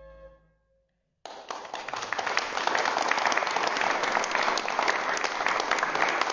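A pipe organ's held closing chord dies away in the first half-second. After a brief gap, a congregation starts applauding about a second in and keeps up steady clapping.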